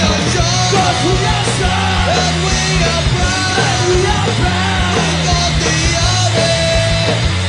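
Punk rock song: a full band of guitars, bass and drums keeping a steady beat, with shouted vocals over it.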